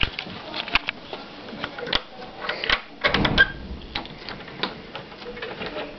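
Irregular sharp clicks and knocks, with a longer, louder scuffing noise about three seconds in.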